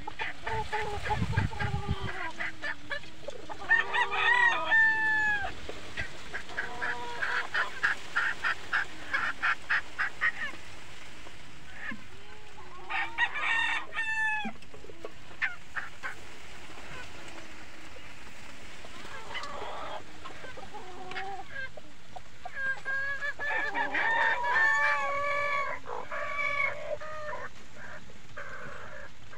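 Backyard gamefowl calling: roosters crow several times, with the loudest crows about four seconds in and a cluster near the end. Between them comes a quick run of short clucks.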